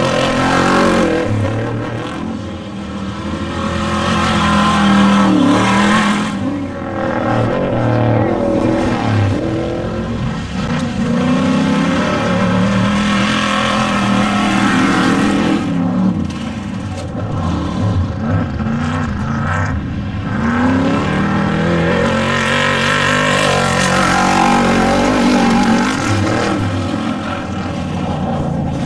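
Off-road desert race vehicle engines running hard, their pitch repeatedly rising and falling as they rev up and back off.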